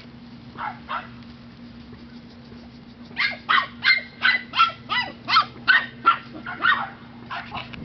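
Five-week-old mini Australian Shepherd puppy yipping. Two short yips come about a second in, then a quick run of high, short barks at about three a second, trailing off into a few fainter ones near the end.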